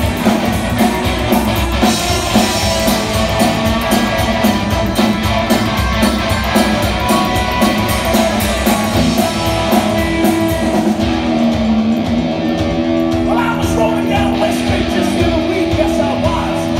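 Live rock and roll band playing loud: upright double bass, two electric guitars and a drum kit driving a steady beat, with sustained guitar notes in the later part.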